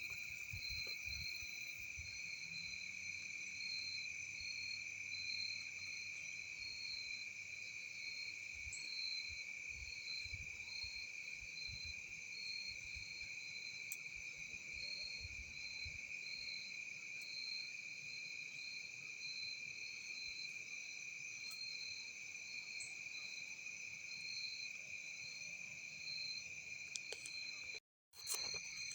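Steady evening chorus of crickets and other insects: a continuous high trill, with a second, higher layer that pulses rapidly. It breaks off for a moment near the end.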